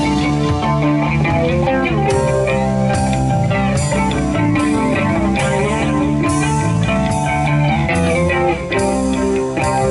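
Rock band jamming: electric guitar and bass guitar over a drum kit, with cymbal strokes at a steady beat.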